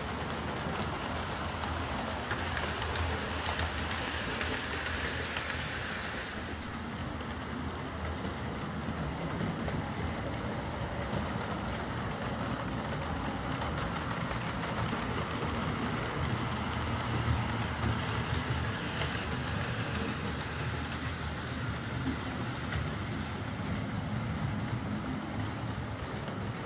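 OO gauge model trains running on a layout: a steady whir of small electric motors and wheels rolling along the track. A brighter hiss joins in for a few seconds near the start.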